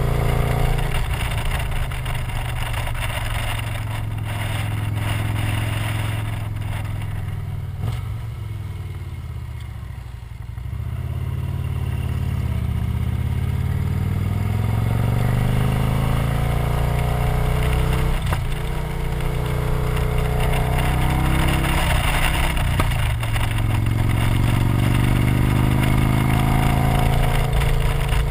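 Victory motorcycle's V-twin engine running under way, heard from the bike itself with wind rush. The throttle eases off around ten seconds in, then the engine note rises as it pulls and accelerates again, twice.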